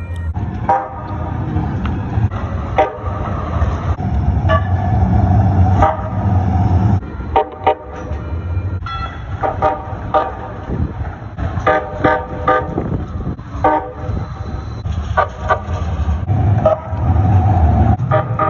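Calgary Transit CTrain light-rail train horn sounding in a string of short toots, some in quick pairs and clusters, over the low rumble of a moving train.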